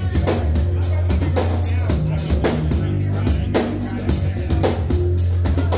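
Live rock band playing an instrumental passage: a drum kit keeps a steady beat with cymbals over low sustained bass notes, with keyboard and electric guitar.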